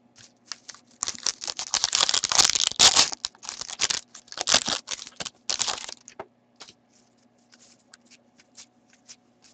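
A trading-card pack's wrapper being torn open and crinkled, in dense crackling bursts over the first few seconds. After that come only light flicks and clicks of cards being handled.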